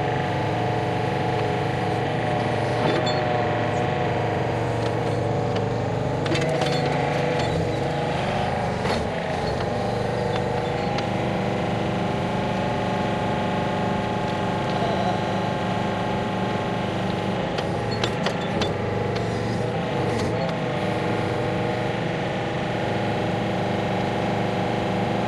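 An engine running steadily at an even speed, with a few short knocks and clatters now and then.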